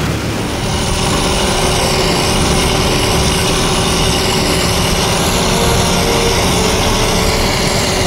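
Steady engine and driving noise of farm machinery on the move, growing slightly louder about a second in.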